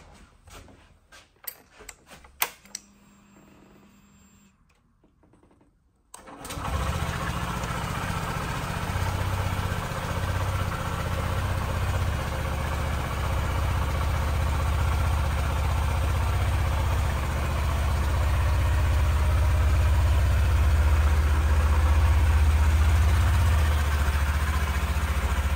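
Honda CB125F's 125cc single-cylinder four-stroke engine being started and left idling. A few clicks and a short hum come first, then about six seconds in the engine catches at once and settles into a steady idle.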